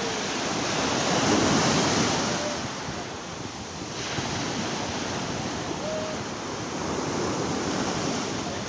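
Sea waves washing onto the shore as a steady rush that swells about a second in and again near the end, with wind buffeting the microphone.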